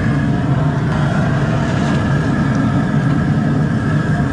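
High-pressure propane burner running under a steaming crawfish boil pot: a loud, steady low rumble that does not change.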